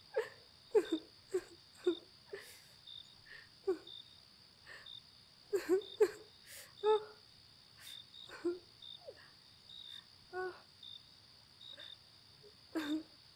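Crickets chirping steadily in the night. Over them come many short pained groans, whimpers and gasping breaths from a person straining and hurting, several a second at the start and sparser later.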